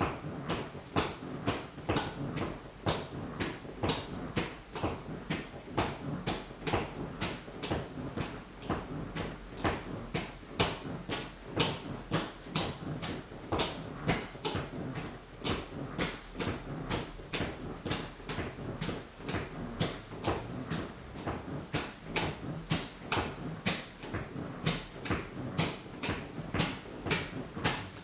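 White sneakers tapping in a steady rhythm, about two to three sharp taps a second.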